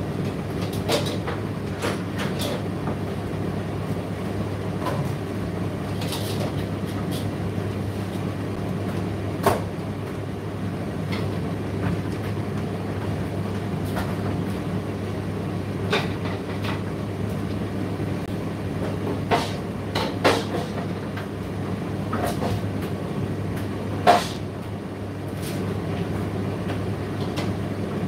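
Indesit IDC8T3 condenser tumble dryer running a drying cycle: a steady hum from the drum motor and fan, with irregular clicks and knocks from the load tumbling in the drum, the sharpest about nine and a half and twenty-four seconds in.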